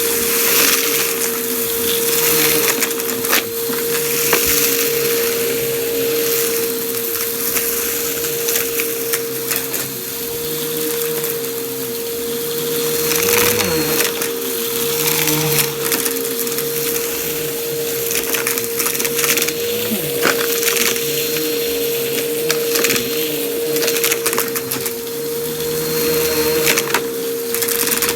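Vacuum cleaner running with a steady hum while it sucks up crunchy debris, which crackles and clicks through the nozzle and hose without a break.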